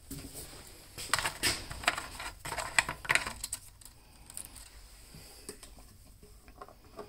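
The plastic fuel cap of a Senix four-stroke chainsaw being unscrewed and lifted off the tank: a quick run of clicks and scrapes over a couple of seconds, then fainter handling.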